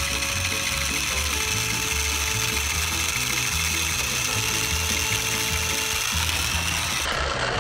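Two battery-powered TrackMaster toy engines pushing head to head, their motors and plastic gears running with a steady clicking, ratchet-like whir as they strain against each other. Background music plays along, and the sound cuts off suddenly near the end.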